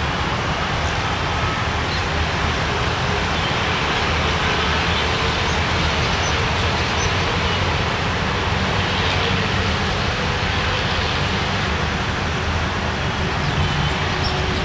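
Steady low rumble of a metre-gauge diesel locomotive drawing slowly into the station, heard through a constant background of outdoor noise.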